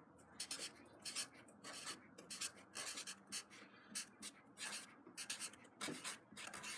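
Blue Sharpie felt-tip marker writing a line of words on paper, a quick run of short scratchy strokes.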